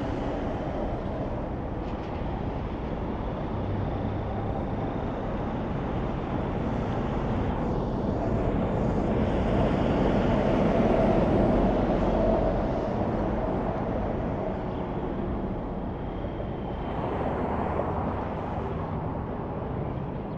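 Highway traffic going by: the tyre and engine noise of a passing vehicle swells to its loudest about halfway through and fades, with a smaller swell near the end.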